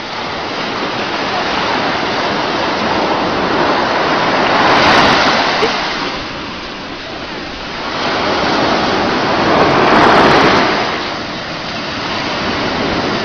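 Sea surf rushing steadily, swelling twice as waves break and wash in, about five and ten seconds in.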